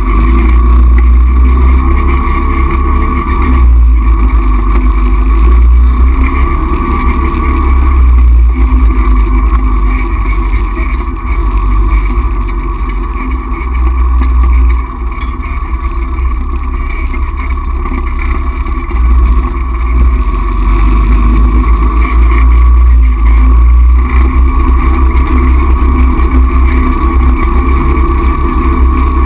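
Four-wheeler (ATV) engine running steadily under way on a rough grass trail, with a heavy low rumble. It dips briefly about halfway through.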